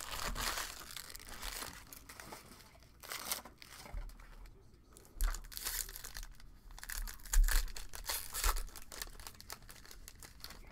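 Foil wrapper of a Topps baseball card pack crinkling and tearing open in several short bursts, the loudest about seven seconds in.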